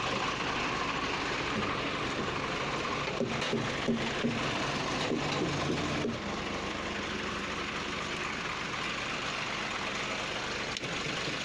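Diesel truck engine idling steadily.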